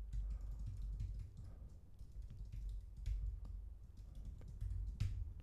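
Typing on a computer keyboard: a run of light, irregular key clicks.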